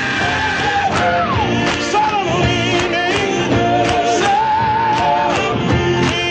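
Gospel quartet singing with instrumental backing and a steady beat: a lead voice holds and bends high notes with vibrato over the group's harmonies.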